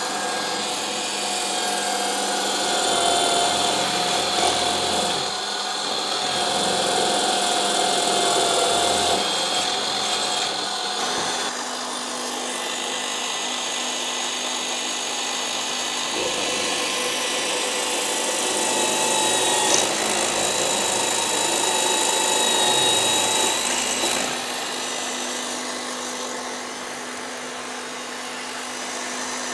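Benchtop drill press running and drilling holes in an aluminium profile, a steady motor hum with the cutting noise of the bit; its tone shifts about a third of the way in and again near the end.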